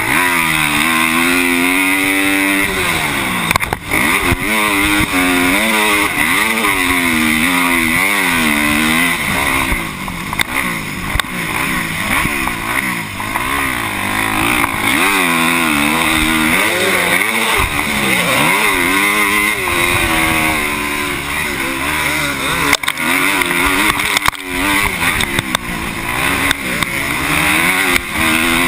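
Motocross bike engine racing around a dirt track, its pitch climbing and dropping every second or two as the rider opens the throttle, shifts and backs off into corners. A steady rush of wind noise runs underneath.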